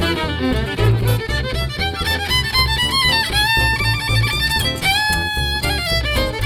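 Live band playing an instrumental passage: a lead melody with long held notes over a steady bass and rhythm accompaniment.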